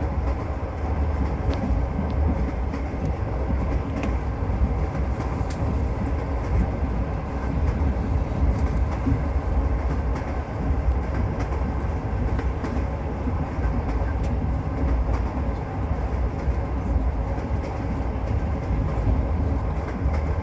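Passenger train's wheels running on the rails, heard from inside the carriage: a steady low noise with faint occasional ticks.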